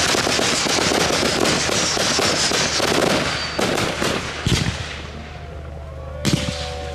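Fireworks: a dense run of rapid crackling with a faint whistle over it, thinning out about three and a half seconds in with a couple of sharp bangs. After a short lull, new bangs and a steady whistling tone start near the end.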